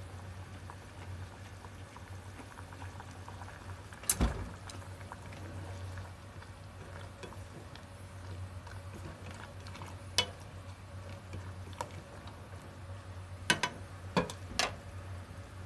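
A pot of miso soup bubbling on the stove, with a fine crackle of bubbles over a steady low hum. A few sharp knocks cut through: one about four seconds in, one about ten seconds in, and a quick cluster of three near the end.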